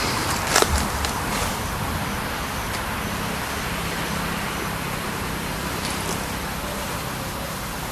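Steady outdoor background noise, a hiss with a low hum under it, like distant traffic, with one sharp click about half a second in.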